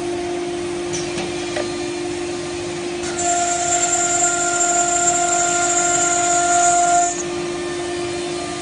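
CNC router spindle running at a steady high-pitched whine. From about three seconds in, a louder, higher whine joins it for about four seconds, then cuts off suddenly.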